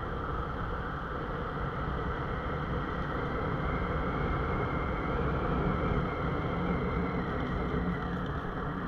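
Motorcycle engine running steadily while riding at cruising speed, mixed with road and wind noise, heard from the rider's seat.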